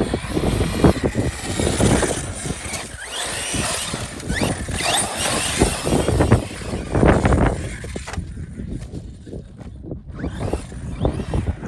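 Arma Fireteam 6S RC car being driven hard: its brushless motor whines up and down in pitch over and over above a rough, rushing noise, easing off about eight seconds in before picking up again near the end.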